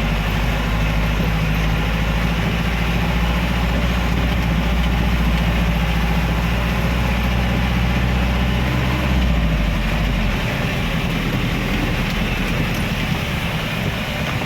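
Car interior while driving in heavy rain: a steady low engine and road hum under a constant hiss of rain and tyres on the flooded road. The low hum drops away about ten seconds in, leaving mostly the hiss.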